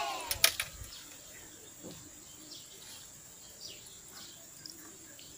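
Faint outdoor background with scattered short, high bird chirps. Two sharp clicks come close together about half a second in.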